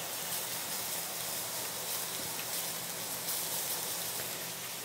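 Oyster mushrooms sizzling and steaming in a hot cast-iron pan, pressed under a second cast-iron pan and cooked with a little water instead of oil: a steady crackling hiss.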